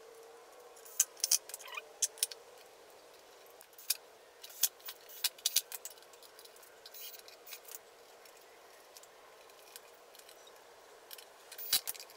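Scattered sharp clicks and taps of metal parts being handled and set in place, in a few short clusters: the battery hold-down bar and the metal deck plate of a Razor E100 scooter being fitted back over the battery compartment.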